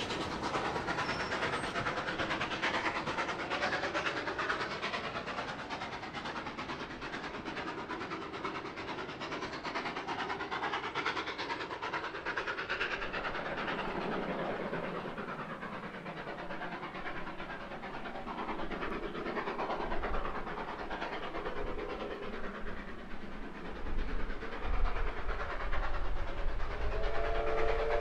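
Steam train's carriages rolling along the track with wheels clattering over the rail joints, then a steam locomotive approaching with a low rumble that builds near the end, when its whistle sounds.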